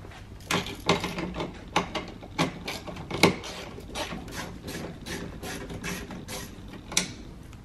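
Hand ratchet clicking in short irregular runs while backing out 7 mm bolts inside a car door.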